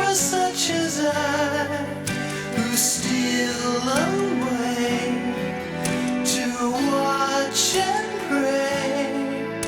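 Music: a slow song with singing over sustained instrumental chords, with plucked guitar-like strings.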